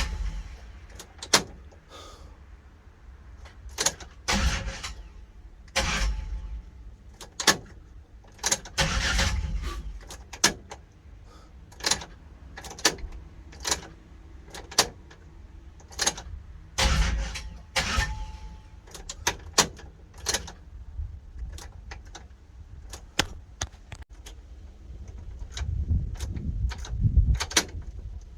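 Irregular clicks and knocks with a few short, heavier low rumbles, from hands-on work in and around a car.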